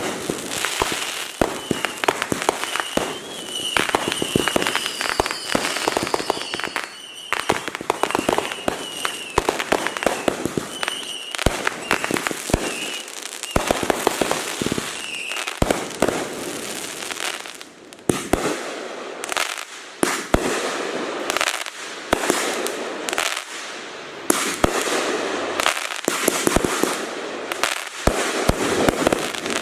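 Consumer firework cakes going off: a rapid, dense barrage of bangs and crackling, with short high whistles among them in the first ten seconds or so.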